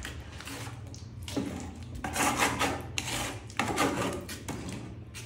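A metal notched trowel scraping and combing tile adhesive across the back of a ceramic floor tile in a series of short strokes, back-buttering it before it is laid.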